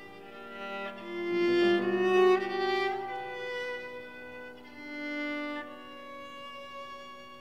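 Viola playing slow, held bowed notes. It swells louder for the first few seconds, with a short upward slide about three seconds in, then settles into quieter sustained notes.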